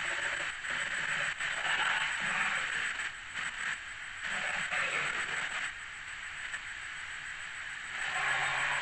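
Tarbosaurus sound effect: a breathy, hissing growl that swells and fades several times.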